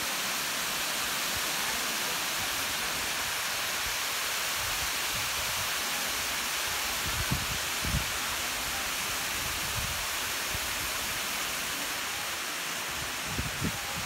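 Steady rushing of a wide waterfall cascading over stepped rock ledges. A couple of brief low thumps come about seven to eight seconds in and again just before the end.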